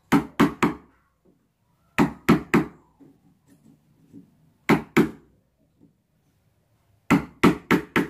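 Sharp knocks of a wood chisel being struck to cut the shallow latch-plate recess into a wooden door edge, coming in quick groups of three, three, two and four strikes.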